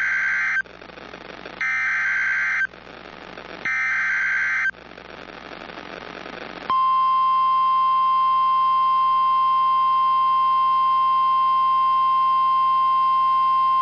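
NOAA Weather Radio alert signal: three short bursts of SAME digital header data, each about a second long with radio hiss between them. About seven seconds in, the steady single-pitch warning alarm tone starts and holds to the end.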